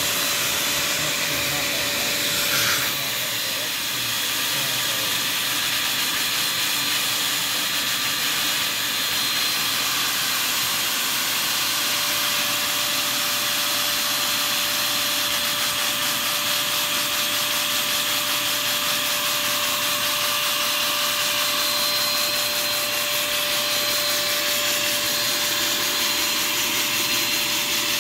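A small vacuum cleaner running steadily, its hose sucking air through a Lego two-cylinder oscillating-piston vacuum engine, giving a constant rush of air with a steady whine over it.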